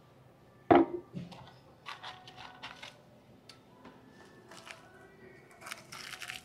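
A hot sauce bottle set down on a table with a single knock about a second in, then faint clicks and crunching from biting and chewing crispy fried chicken.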